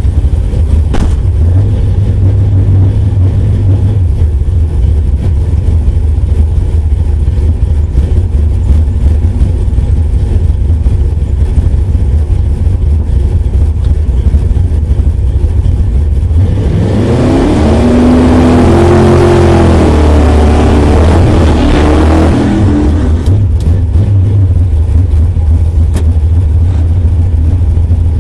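Car engine running loud with a rough idle, revved up once and let fall back to idle about two-thirds of the way through.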